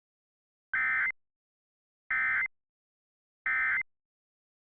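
Emergency Alert System end-of-message data bursts: three short, identical buzzy digital tone bursts about a second apart, signalling that the alert has ended.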